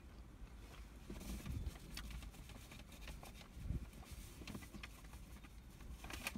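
Faint eating and handling noises: chewing, with light rustles, small clicks and soft knocks at irregular moments.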